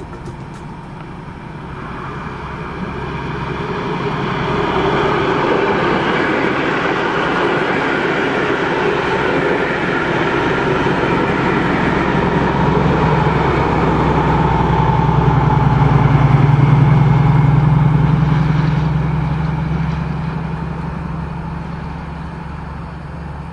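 Class 218 diesel-hydraulic locomotive and its coaches passing at speed. The rolling noise of the train builds over the first few seconds. The locomotive's diesel engine drone is loudest about two-thirds of the way through as it goes by, then fades as the train draws away.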